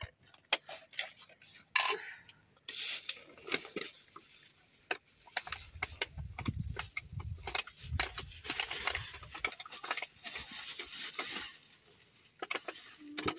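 A plate and cutlery being handled and set down on a cloth-covered floor mat: scattered clinks and knocks, one sharper knock about two seconds in, with stretches of rustling.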